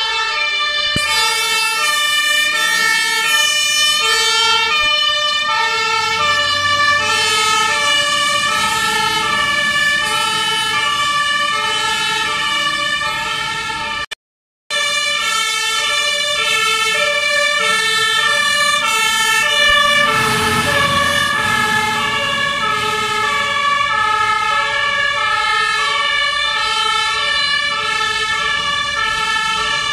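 German two-tone sirens (Martinshorn) on fire engines responding to an emergency, the two pitches alternating in a steady hi-lo pattern. The sound breaks off briefly at a cut about fourteen seconds in, then the sirens carry on.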